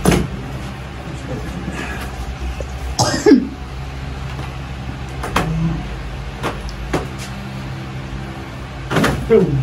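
A steady low motor hum, with several short sharp knocks and two brief throaty sounds from a person, about three seconds in and near the end, each falling in pitch.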